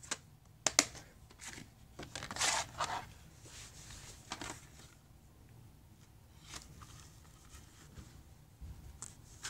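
A plastic DVD case being handled: scattered light clicks and knocks, with a short rustle about two seconds in.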